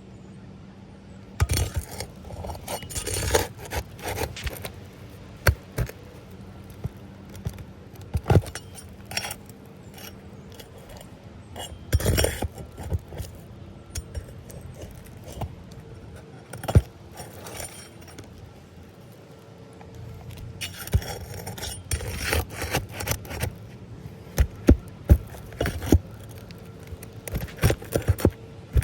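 Hand work during a roof shingle repair: irregular scrapes, clicks and light metallic rattles that come in clusters, with quieter stretches between them.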